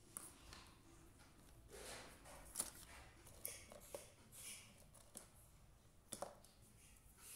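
Near silence with a few faint clicks and soft rustles scattered through it, the sharpest about two and a half seconds in.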